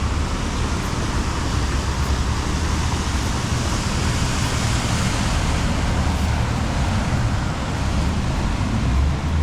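Steady rushing noise of heavy rain and floodwater on a flooded road, with vehicle engines running low underneath.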